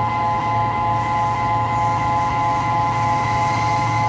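Level crossing warning alarm sounding a steady electronic multi-tone signal that pulses about three to four times a second, warning that a train is approaching, over a low steady hum.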